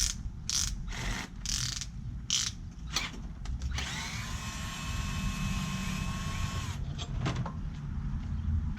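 Metal tools and small parts clicking sharply several times while Allen screws are worked out of a 50cc scooter's bodywork. Then a steady mechanical whine for about three seconds that stops abruptly.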